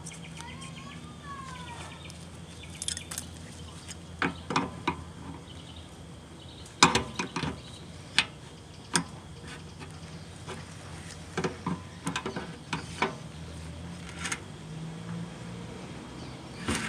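Scattered metallic clicks and taps of a wrench tightening a threaded fitting into a new radiator, over a faint steady hum.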